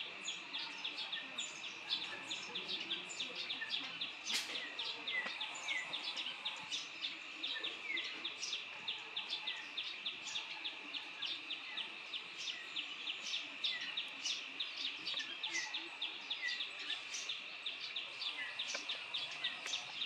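A steady, high-pitched pulsing chorus, insect-like, with short falling bird chirps about once a second over it.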